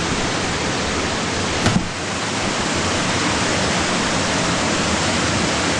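Waterfall rushing steadily, with one brief thump a little under two seconds in.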